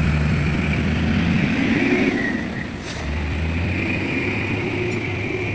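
Heavy diesel machinery engine running under load, with a steady high whine above it. The engine eases off briefly about three seconds in, then picks up again.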